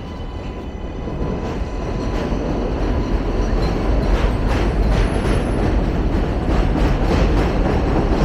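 Elevated subway train on the 7 line passing overhead, getting steadily louder, with a rhythmic clatter of wheels over rail joints.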